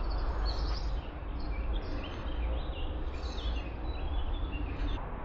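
Wild birds singing: a run of short chirps and trills over a steady low rumble.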